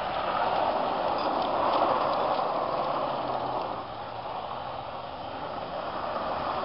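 Full-size SUV doing a donut on loose dirt and gravel: a steady rush of spinning tyres spraying dirt, with the engine running hard underneath. It eases off about four seconds in and builds again toward the end.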